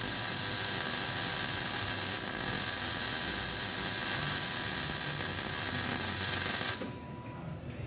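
Welding arc crackling and hissing steadily, then cutting off suddenly about seven seconds in as the arc is broken.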